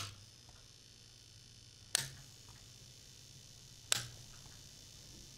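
Sound effect of neon letters switching on: three sharp electric clunks about two seconds apart, each followed by a low electrical hum that stays on.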